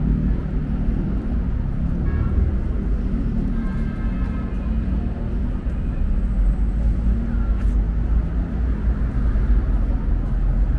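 City street ambience: a steady low rumble of road traffic, with faint voices of passers-by a couple of seconds in.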